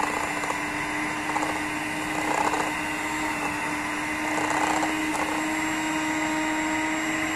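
Electric hand mixer running steadily at one speed, its twin wire beaters whipping cream in a glass bowl.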